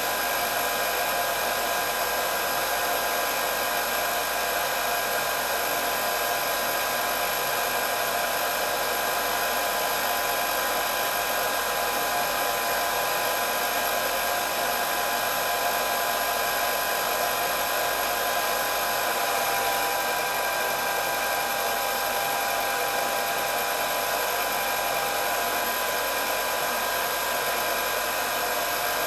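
Hair dryer running continuously, a steady rush of blown air with a constant motor whine.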